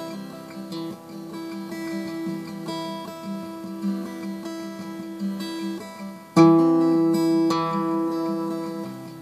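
Acoustic guitar music: a run of plucked notes, then a loud strummed chord about six and a half seconds in that rings out and slowly fades.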